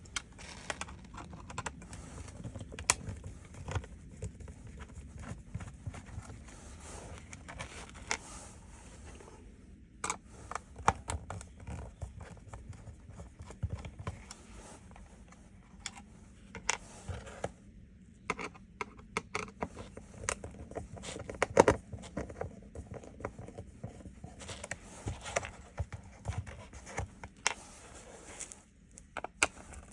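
Small plastic and metal parts of a car's light control switch unit being worked apart by hand: irregular clicks, taps and light scraping throughout, over a low steady hum.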